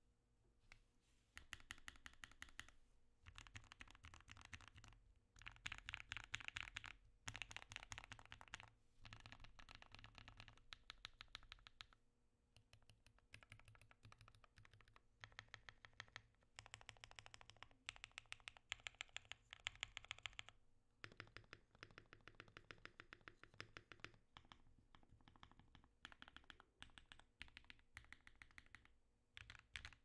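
Typing on a Mode80 mechanical keyboard with lubed Durock POM switches, an FR4 plate and EPBT keycaps: fast runs of keystroke clicks broken by short pauses, starting about a second in.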